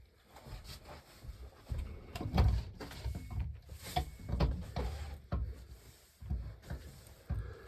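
Irregular knocks and thuds, like objects being handled and set down, with the loudest thuds about two and a half seconds in and again around four seconds.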